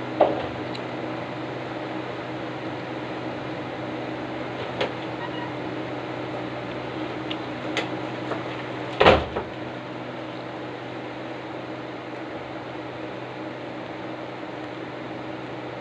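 Steady appliance-like hum with a few faint clicks, and one sharp knock about nine seconds in.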